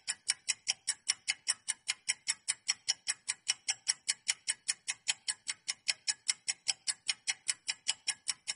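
Ticking-clock countdown sound effect: fast, even ticks about five a second, marking the seconds running out on a quiz timer.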